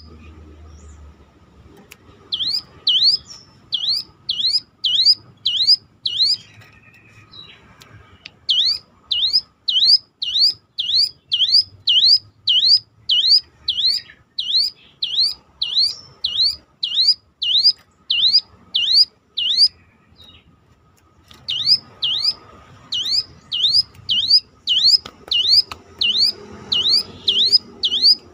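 Ciblek gunung (a prinia) repeating a loud siren-like call: a long series of whistled notes, each dipping then rising, about two a second. The series breaks off briefly near the start, about 7 seconds in and about 20 seconds in.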